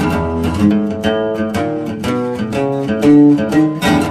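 Background music: plucked guitar playing a quick run of picked notes, starting abruptly.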